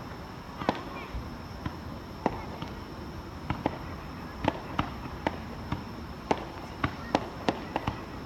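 Fireworks going off: a run of sharp, separate pops and bangs at irregular intervals, coming faster in the second half.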